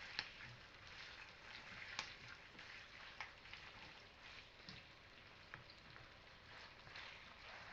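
Chicken breast and onion frying in hot oil, a faint steady sizzle, with a few sharp clicks of the spatula against the pan as the chicken is stirred.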